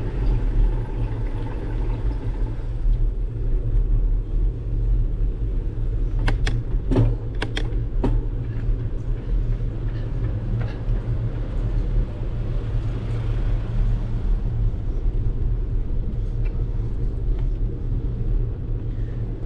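Steady low rumble of wind and road noise picked up by a bicycle-mounted GoPro while riding, with a short run of sharp clicks or rattles about six to eight seconds in.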